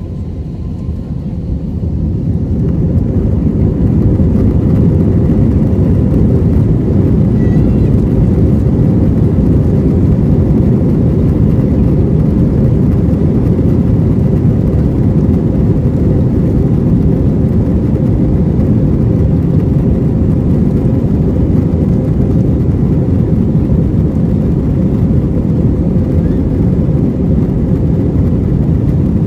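Airbus A321 jet engines at takeoff thrust: a loud, steady rumble that builds over the first few seconds and then holds level.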